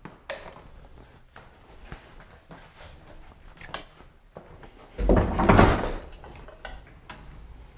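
Bicycle brake and bike being handled by hand: scattered light clicks and knocks, with a louder rustling clatter lasting about a second about five seconds in.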